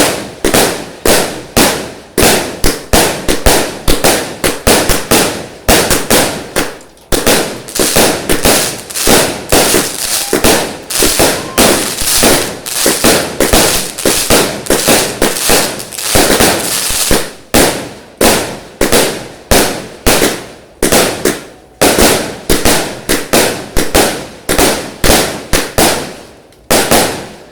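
Fireworks going off in a rapid, unbroken run of sharp bangs, about two to three a second, each with a short fading tail; the barrage stops just before the end.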